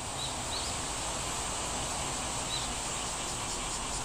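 Steady background hiss with three faint short chirps, two close together about a quarter and half a second in and one more about two and a half seconds in.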